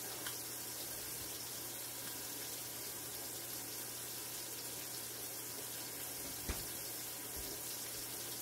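Country-style pork ribs sizzling steadily in a stainless steel pan over a high gas flame, with a single light tap about six and a half seconds in.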